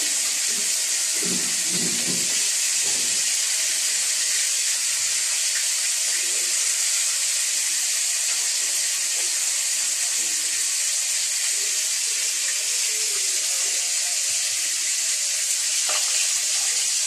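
A steady, even hiss that runs unbroken.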